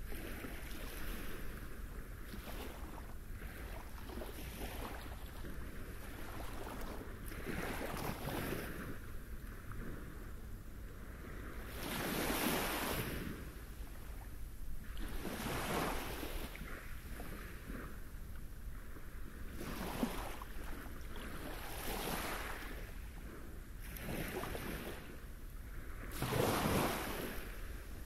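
Small waves breaking at the edge of a pebble beach and washing over the stones, each arriving as a swell of hiss every two to four seconds. The largest come about halfway through and near the end.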